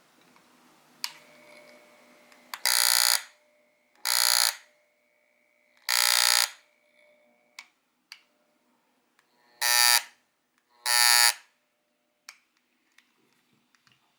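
Aoyama electric massager giving five short, loud buzzes at uneven intervals, with a few faint clicks between them.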